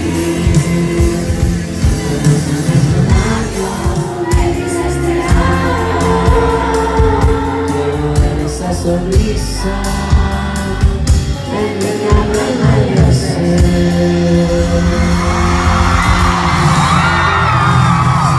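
Live band music in a large hall, heard from within the crowd: sung vocals over bass, keys and drums. Many audience voices sing and shout along near the end.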